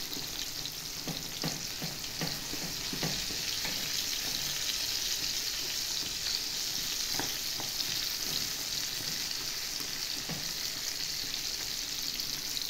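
Tomato-and-vegetable sauce sizzling steadily in a stainless steel pan while a wooden spoon stirs it. The spoon knocks against the pan in a quick run during the first few seconds, and a few more times later.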